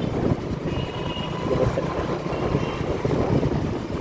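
Motorbike running at road speed in city traffic: a steady engine and road rumble.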